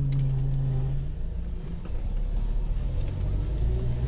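Car engine running and road rumble heard from inside the cabin while driving. The engine's hum is steady, then drops to a lower note about two seconds in.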